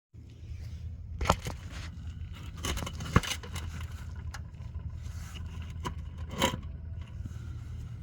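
Metal tools clinking and scraping in a few short bursts, about a second in, around three seconds in and again past six seconds, over a steady low hum.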